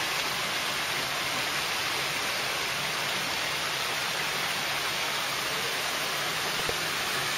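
Steady rush of water from a small artificial waterfall spilling over rocks into a stream.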